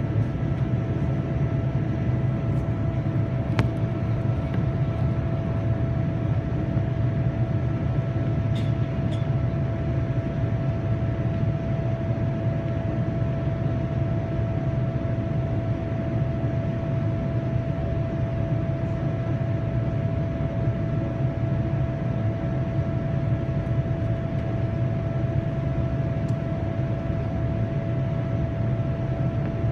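Boeing 787-9's General Electric GEnx-1B turbofan engines running steadily, heard inside the cabin in flight: a constant low rumble with a steady hum tone above it.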